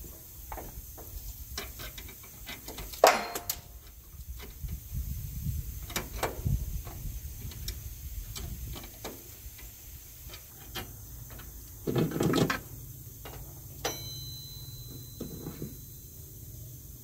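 Hand tools and metal parts clinking and knocking during wrench work on truck suspension hardware, with one sharp clank about three seconds in and a short rattle around twelve seconds. A thin ringing tone starts suddenly near fourteen seconds.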